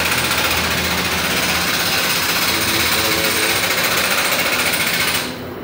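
Loud, rapid mechanical hammering of a power tool, running steadily for about five seconds and then stopping abruptly.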